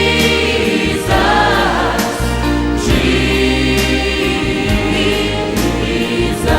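Choir singing a Christian worship song with band accompaniment: long held vocal notes over a steady bass, with regular percussion strokes.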